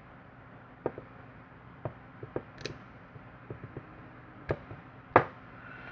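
Padlock parts clicking and tapping while a lock core is fitted into a padlock body. There are about eight sharp, separate metal clicks spread irregularly, and the loudest comes near the end.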